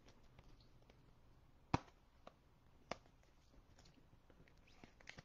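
Near-silent handling of trading cards: a few short, sharp clicks as cards are handled and set down, a clear one a little under two seconds in and another about a second later, with several small ones near the end.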